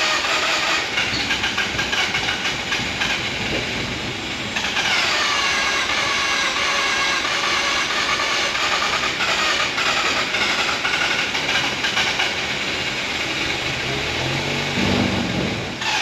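Mazda RX-8's 1.3-litre rotary engine cranking on the starter without catching. A fresh crank begins about four and a half seconds in, its starter whine dropping in pitch and then steadying. The no-start is put down to a flooded, low-compression rotary.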